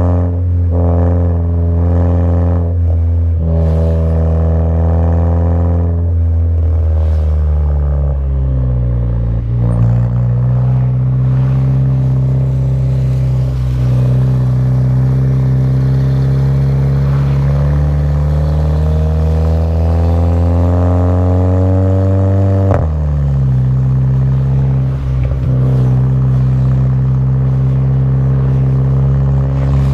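Modified VW Jetta GLI Mk6's turbocharged 2.0-litre engine, with aftermarket intake, downpipe and cat-back exhaust, running steadily and then rising slowly in pitch as it accelerates. About three quarters of the way in, a DSG upshift drops the pitch abruptly with a brief sharp pop, and the note then starts climbing again.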